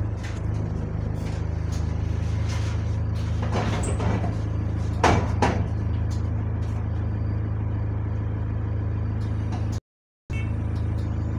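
Bus engine idling steadily at a stop, while the passenger doors work with a few knocks and then a loud slam about five seconds in, with no door buzzer sounding.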